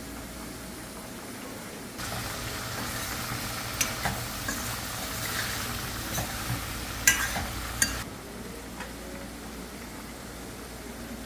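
A metal spoon stirring bodi (long beans) and tomatoes frying in a metal pot, with sizzling and several sharp clinks of the spoon against the pot, from about two seconds in until about eight seconds in. A steady low hum can be heard before and after.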